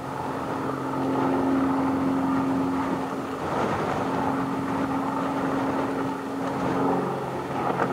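An engine running steadily, a droning note that holds one pitch for several seconds and drops away about seven seconds in.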